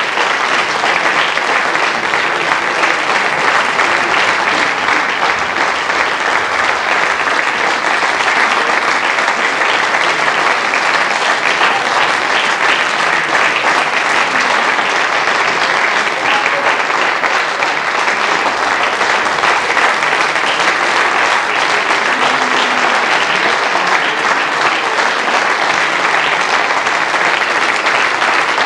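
Theatre audience applauding: dense, steady clapping that holds at an even level throughout, at the performers' curtain call.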